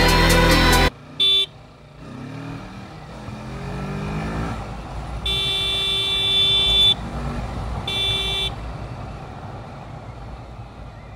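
Kawasaki Ninja 650 parallel-twin engine rising in pitch as the motorcycle accelerates, with wind and road noise. A vehicle horn sounds three times: a short toot, a long blast of about a second and a half, then a short blast.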